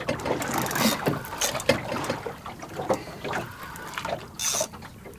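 Water splashing and sloshing around a small open fishing boat in irregular bursts.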